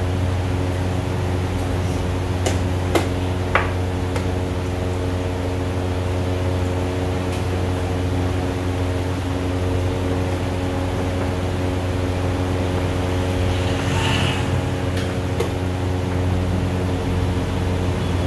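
Steady machine hum with several steady tones. A few sharp clicks about three seconds in, and a faint one near the end, from chess pieces being set down and the chess clock being pressed.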